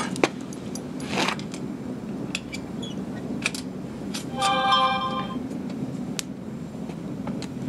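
Propane foundry burner running with a steady rushing noise, while steel tongs clink against a metal crucible several times. About four and a half seconds in, a brief steady pitched tone sounds for about a second.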